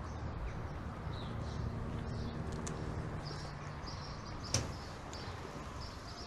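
A car door shuts once with a short, sharp clack about four and a half seconds in, over faint bird chirps and low held tones.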